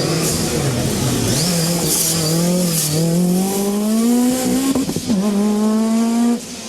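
Rally car engine at full throttle, its revs climbing in steps through gear changes, with a short hiss of tyres on the loose surface. The engine sound cuts off abruptly near the end.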